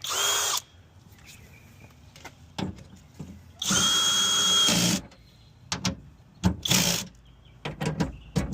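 Cordless drill running in bursts to drive screws back in, with a steady whine: a short run at the start, a longer run of about a second in the middle, then a few short runs near the end, with small clicks in between.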